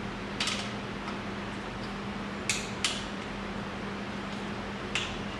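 Allen key clicking against a leg bolt as it is turned into a table's metal frame: four short metallic clicks, two close together in the middle, over a steady low hum.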